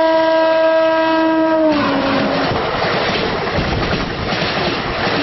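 Indian Railways WAP-4 electric locomotive passing at speed with its horn blowing: one long steady horn note that drops in pitch as the locomotive goes by and stops about two and a half seconds in. Then the loud rush and clatter of the passenger coaches racing past close by.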